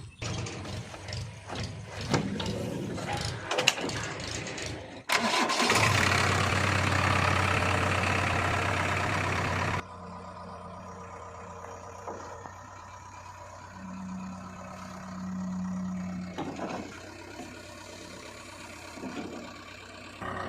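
Diesel engine of earthmoving machinery running: uneven at first, then a louder steady stretch from about five seconds in that cuts off abruptly near the middle, followed by quieter steady running.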